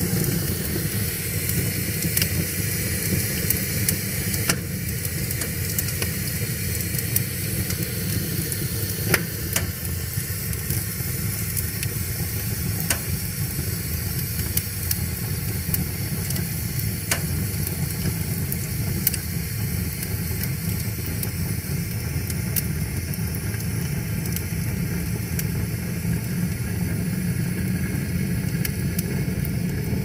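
Split logs burning in a metal fire pit: a steady low rumble of flames with scattered sharp crackles and pops from the wood.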